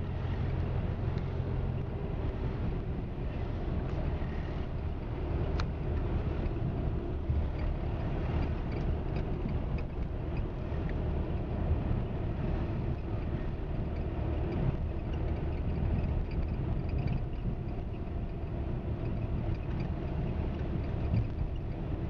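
Steady rushing noise of wind on the microphone over the running noise of a moving vehicle, unchanging throughout with no distinct events.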